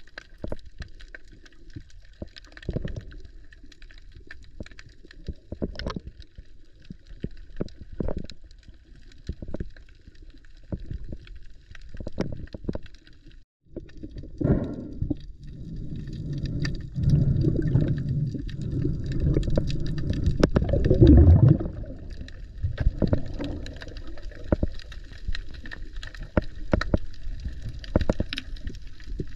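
Underwater audio through a camera housing: scattered clicks and crackles, then a low rush of moving water and bubbles that builds from about halfway, is loudest for several seconds, and then eases.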